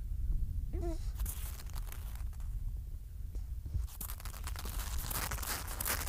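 A seal pup gives one short, squeaky call about a second in, over a steady low rumble. From about four seconds in comes dense crunching and scraping as the pup shuffles across snow right beside the microphone.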